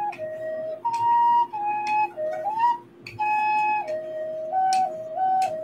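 Homemade recorder made from copper pipe, playing a slow melody of held notes that step up and down, with a short break for breath about three seconds in.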